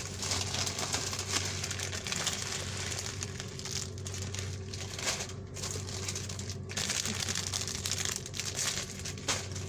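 Plastic food packets crinkling irregularly as they are handled, with short pauses, over a steady low hum.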